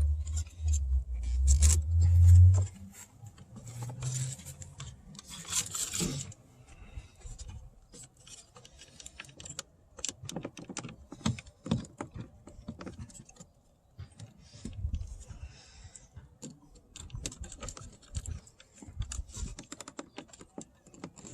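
A car's plastic door trim being worked loose by hand: scattered small plastic clicks and a short scrape about six seconds in. The piece is really tight. A loud low rumble fills the first two and a half seconds.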